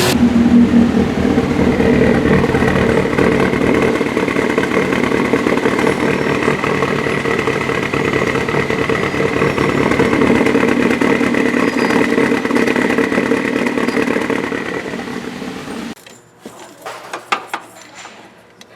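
2014 Subaru WRX's EJ255 turbocharged flat-four engine idling steadily, then shut off suddenly about sixteen seconds in. A few light knocks and clicks follow.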